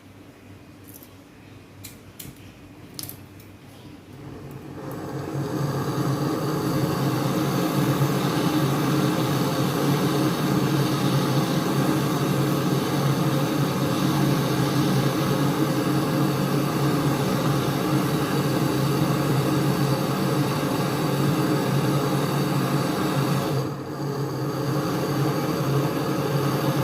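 A few light metal clicks, then an electric motor-driven machine comes up about four to five seconds in and runs steadily with an even hum, dropping briefly near the end.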